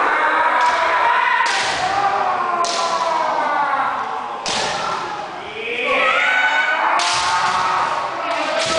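Punches in boxing gloves landing during kickboxing sparring: about six sharp hits a second or two apart, over voices throughout.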